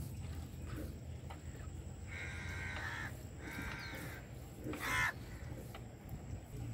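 A crow cawing three times: two drawn-out caws about two seconds in, then a shorter, louder one about five seconds in.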